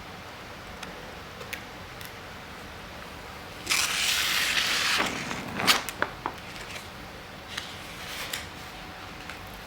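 Handling noises: light clicks and crinkles, with one loud rustling scrape lasting over a second about four seconds in, followed by a few sharp clicks.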